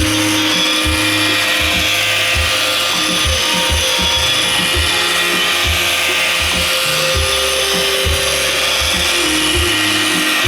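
iRobot Roomba 560 robot vacuum running: a steady whirring hiss from its vacuum motor and brushes, with short knocks scattered through it.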